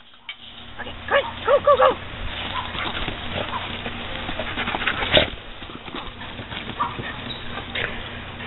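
Dogs playing, with a quick run of about four short barks about a second in and one sharp, louder sound about five seconds in, over a steady low hum.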